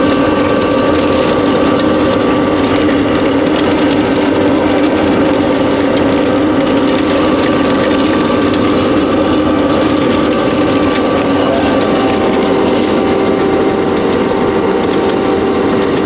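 ELF Systems Pellet Mill 772 running under load, pressing wild artichoke biomass through the die and discharging pellets: a steady, loud mechanical hum with a dense, even rattle of the rollers and drive. A faint higher tone joins about twelve seconds in.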